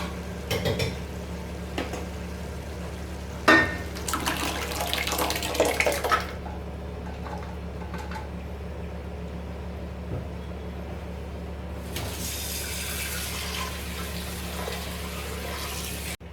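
Mung beans and liquid being poured into a cooking pot. There is a sharp knock about three and a half seconds in, then a couple of seconds of pouring and splashing, and a second, quieter pour about twelve seconds in, over a steady low hum.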